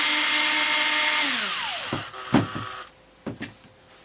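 Electric drill motor spinning at steady full speed, then winding down with a falling whine as the trigger is released. A few sharp clicks follow as it stops.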